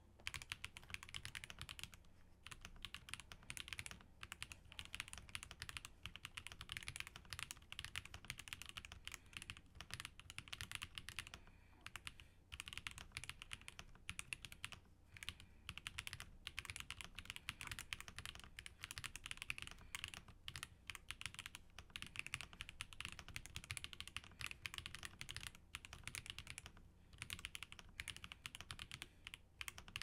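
Fast continuous typing on a FancyAlice66c mechanical keyboard with factory-lubed WS Heavy Tactile switches, a POM plate with plate foam, and GMK Villanelle keycaps. Keystrokes run in a dense stream broken by a few short pauses.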